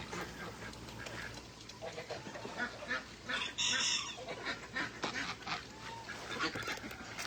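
Domestic ducks and geese calling: a run of short quacks and honks, with one loud call about three and a half seconds in.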